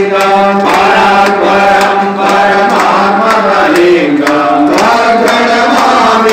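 Group of Hindu priests chanting mantras together in a steady recitation on a held note, with regular sharp clicks over it.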